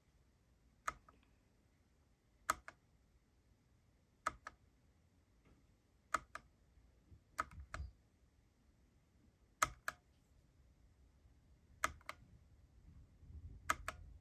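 Single keystrokes on a Satechi low-profile mechanical keyboard, each a sharp click, mostly in pairs of press and release, about every two seconds, as the backlight modes are cycled.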